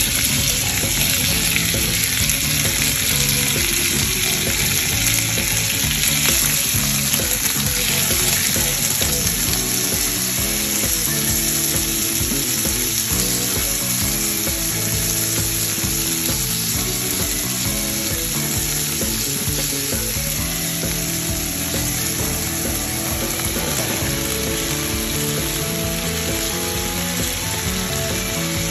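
Cubed lamb sizzling in hot olive oil in a frying pan, stirred and turned with a wooden spatula.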